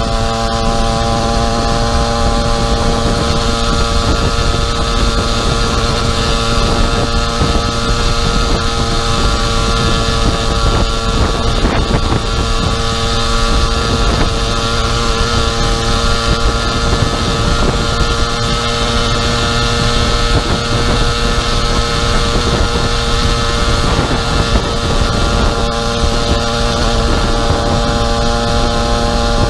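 Small 50cc two-stroke pocket bike engine on a motorized bicycle, running at a steady cruising speed with an even, unchanging pitch. Wind buffets the microphone underneath.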